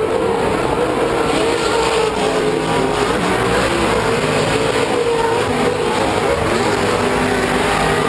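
Pro 2 short-course off-road race trucks' V8 engines running hard on the dirt track, their pitch rising and falling as they rev through the turns.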